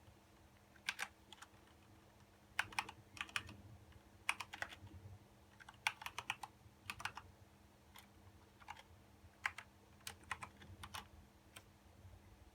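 Light, sharp clicks in short irregular runs of two to four, over a steady low hum.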